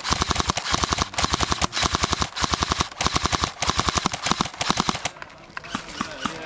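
Airsoft guns firing rapid full-auto bursts of about half a second each, one after another, stopping about five seconds in and leaving a few scattered single shots.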